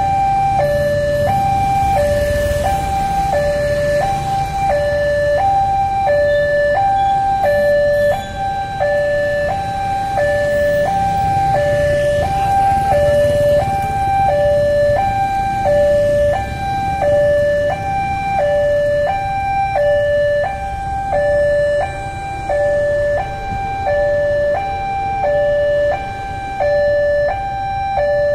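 Railway level-crossing warning siren, the crossing's double siren, sounding a steady two-tone alternation. A high and a low pitch each last about half a second, repeating without a break.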